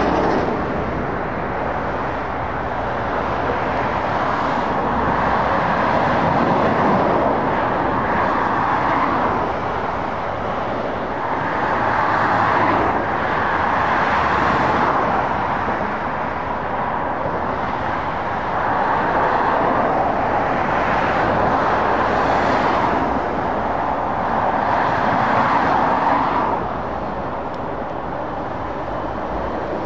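Road traffic of lorries and cars passing: steady tyre and engine noise that swells and fades several times as each vehicle goes by.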